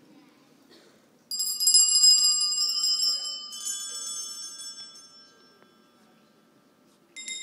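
Bells ringing: a sudden loud, bright chord of ringing tones about a second in that slowly fades over several seconds, with more tones joining partway through, and a new ring starting near the end.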